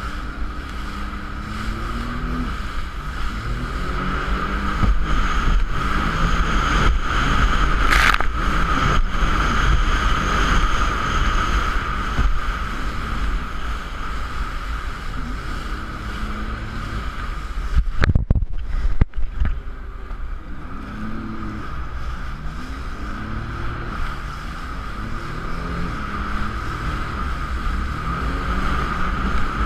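Jet ski engine running under way, its pitch rising and falling as the throttle changes, with wind on the craft-mounted microphone and rushing water. A few sharp knocks stand out about two-thirds of the way through.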